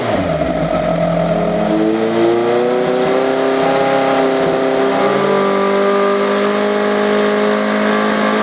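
1986 Kawasaki GPZ1000R's liquid-cooled inline-four running on the stand, held at raised revs to warm it toward operating temperature. After a short blip, the revs climb about two seconds in and are held steady, then begin to drop at the very end. The engine runs smoothly on its replacement used OEM source coils, after bad eBay coils made it fall on its face when hot.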